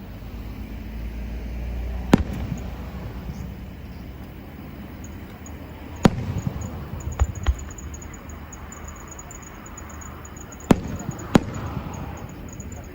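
Aerial fireworks bursting: six sharp bangs at uneven intervals, each trailed by a low rumbling echo.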